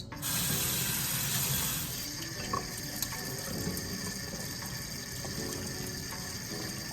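Kitchen faucet running water into the sink for washing vegetables, louder for the first two seconds and then running steadily at a lower level.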